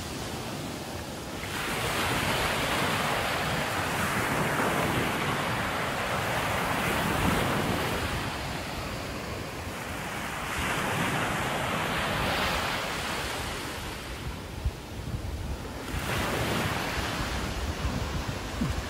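Ocean surf breaking and washing up the beach, swelling and easing in long surges several seconds apart. Wind buffets the microphone with a low rumble.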